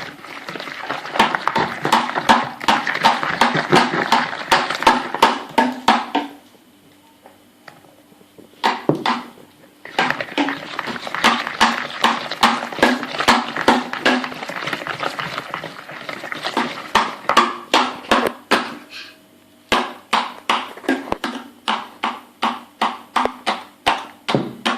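Cake batter being mixed briskly by hand in a bowl as flour is added, the utensil knocking against the bowl about three times a second and stopping briefly twice.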